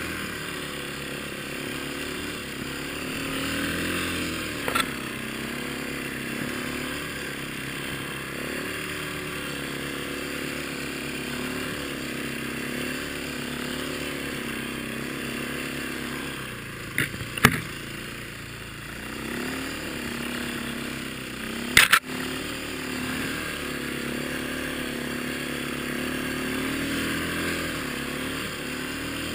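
Four-stroke single-cylinder dirt bike engine on a Timbersled snowbike running under load through deep snow, its pitch rising and falling with the throttle. A few sharp knocks cut in, a pair a little past halfway and the loudest about three-quarters of the way through.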